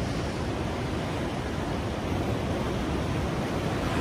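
Steady rush of ocean surf breaking on the rocks, with wind on the microphone.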